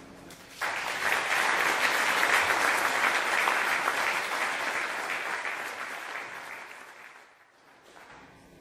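Audience applauding, breaking out suddenly about half a second in and fading away near the end.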